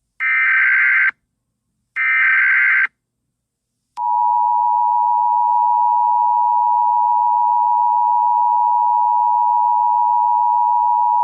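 Emergency Alert System alert: two short bursts of the digital SAME header data, each just under a second and about a second apart. About four seconds in, a long steady EAS attention tone starts.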